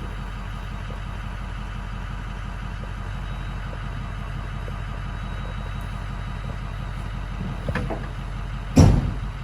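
A vehicle engine running steadily at low revs. Near the end there are two knocks, the second a much louder thump.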